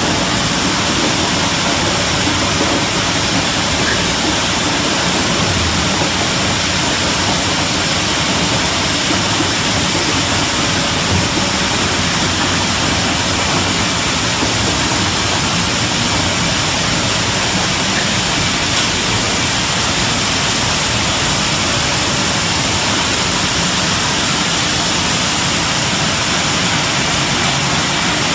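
Running plastic bottle washing and recycling line: a steady, loud machinery noise of motors and moving water, without pause.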